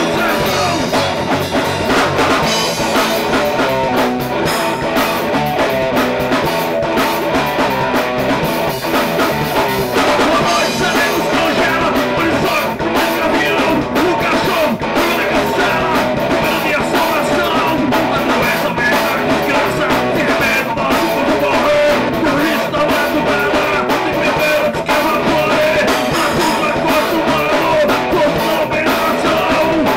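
Rock music with guitar and drums, playing loud and steady.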